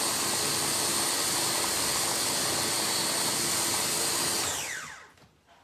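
Electric mini chopper's motor running steadily as it processes chocolate ganache, then released about four and a half seconds in and spinning down to a stop with a falling whine.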